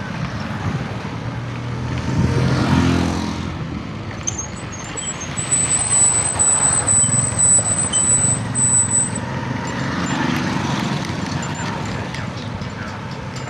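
Road traffic noise with a motor vehicle engine passing close about two to three seconds in. A thin, steady high whine sounds through the middle of the stretch.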